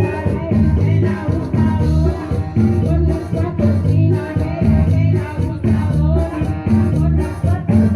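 Upbeat Latin dance song in an instrumental passage: a bouncing bass line, a steady shaker rhythm and a melody carried by the band.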